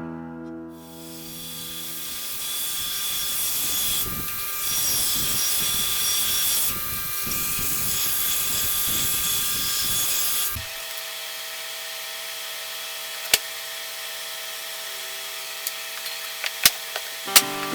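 Belt grinder grinding the bevels of a steel sword blade, a harsh rasping that runs for about ten seconds and then stops. A quieter steady hum follows, with a few sharp clicks near the end.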